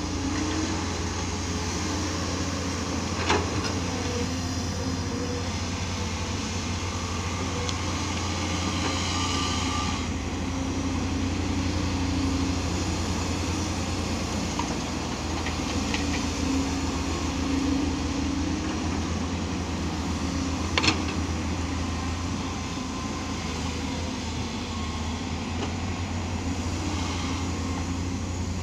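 Diesel engines of hydraulic excavators running under load as they dig and load soil, a steady low drone throughout. A few sharp knocks cut through it, one a few seconds in and the loudest about two-thirds of the way through.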